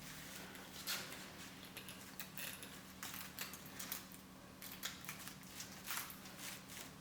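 Light handling noises: scattered soft rustles and small clicks of hands arranging a lace frontal and hair on a wig cap, over a faint steady hum.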